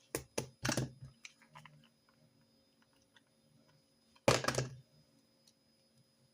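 Handling noises on a note-taking desk: a quick run of clicks and rustles in the first second, a few light taps, then another short rustling clatter about four seconds in.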